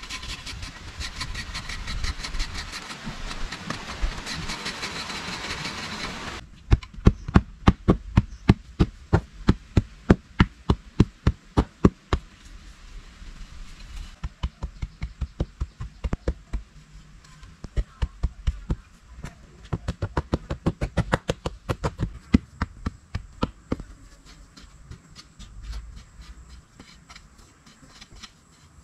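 Repeated sharp strikes of a metal digging tool chopping into hard, dry clay soil, about two to three strokes a second. The strikes become lighter and less regular partway through. A steady hiss lies under the first few seconds.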